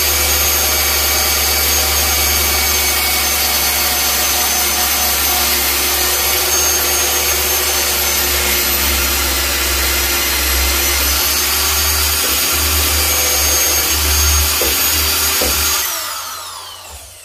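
Corded electric drill running steadily as it bores a screw hole down through a deer's skull cap into the wood of the form. Near the end it spins down, its pitch falling as it stops.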